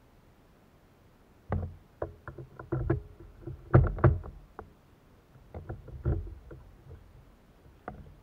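A string of knocks and clunks of a fishing rod and paddle against a plastic sit-on-top kayak, as the rod is set into a clamp-on rod holder and the paddle is taken up. The knocks begin about a second and a half in, are loudest around four seconds in, and a few more come near the end.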